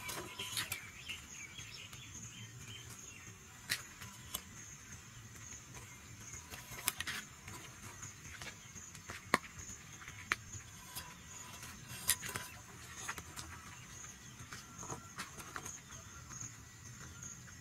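Insects chirping in a steady high, pulsing trill, with a dozen or so scattered sharp clicks and ticks over it.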